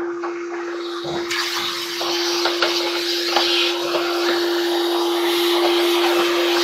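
Vacuum cleaner running with a steady motor hum and air rushing through its hose nozzle. The rush gets louder a little over a second in, with scattered small clicks and rattles.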